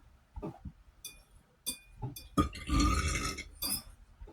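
A long, loud burp lasting about a second, starting about two and a half seconds in, after a few short clicks.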